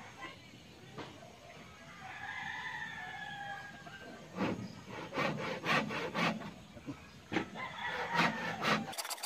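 A rooster crows once, about two seconds in. Then a hand saw cuts through a wooden board in a run of uneven back-and-forth strokes.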